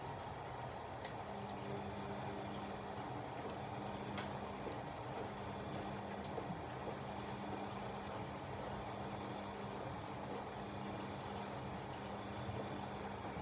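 Bosch Exxcel 1400 washing machine taking in water, a steady rush of water with a low steady hum that starts about a second and a half in.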